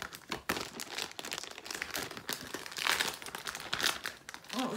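Clear plastic propeller bag with a paper header card crinkling and rustling in irregular crackles as it is handled and tugged open.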